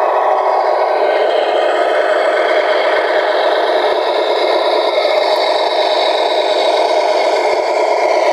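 Tamiya Scania R620 radio-controlled truck pulling its box trailer on asphalt, giving a steady mechanical running noise.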